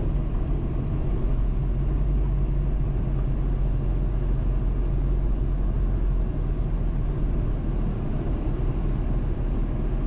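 Old Jeep Cherokee XJ driving at low speed, a steady low engine and road rumble heard from inside the cab.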